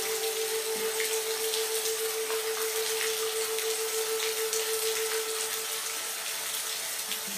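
Steady rain falling, an even hiss with faint scattered drops. A soft sustained note from background music is held beneath it and fades out near the end.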